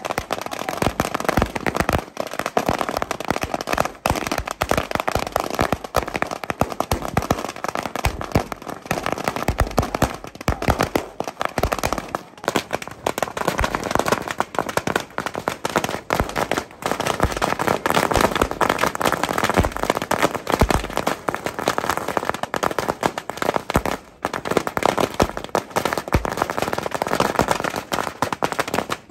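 Strings of firecrackers going off: a dense, unbroken rattle of rapid bangs.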